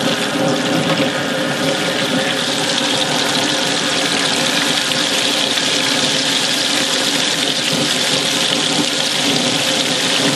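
Hot oil in a deep fryer sizzling steadily as floured shrimp fry in the baskets.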